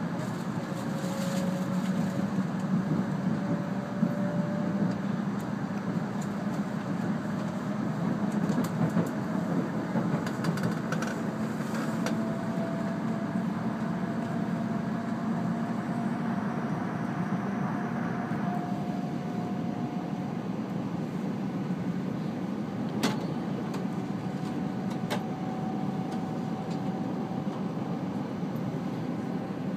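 Cabin noise of a Shinkansen E2 series train running at speed: a steady rumble with a thin whine that slowly rises in pitch as the train gathers speed. Two sharp clicks, about two seconds apart, near the end.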